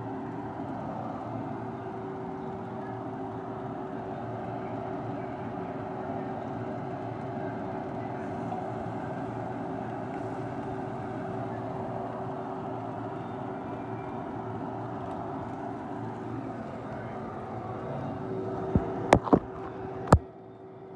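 A steady mechanical hum with one constant low tone running under it. Near the end come four sharp knocks from the phone being handled, and the hum then drops quieter.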